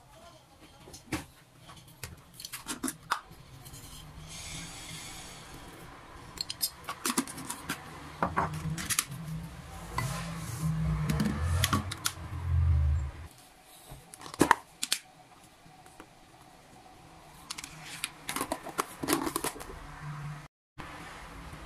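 Household handling sounds: scattered sharp clicks and knocks, a few seconds of hiss about four seconds in, and low thudding around the middle.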